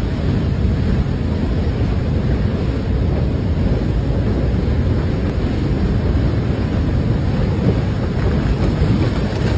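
Mudflow of muddy water and gravel pouring down a torrent channel after heavy rain: a loud, steady, deep rushing rumble.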